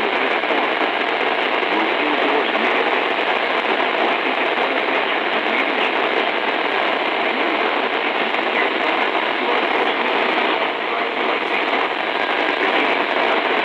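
Loud, steady hiss of radio static from a NOAA weather radio receiver.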